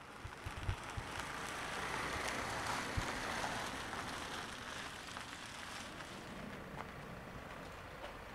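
A Mercedes Sprinter van driving past slowly, its engine and tyre noise swelling as it comes close and fading as it pulls away. There is one knock about three seconds in.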